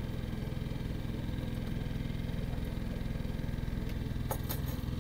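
Boat engine idling steadily with an even, rapid pulse; a few sharp clicks sound near the end.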